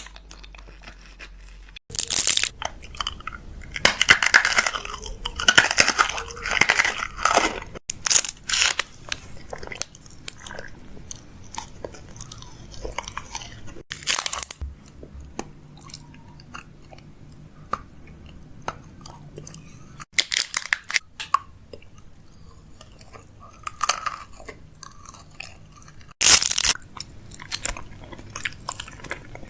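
Close-up crunching and chewing mouth sounds, coming in irregular crackly bursts: dense for the first several seconds, then sparser, with a loud burst near the end.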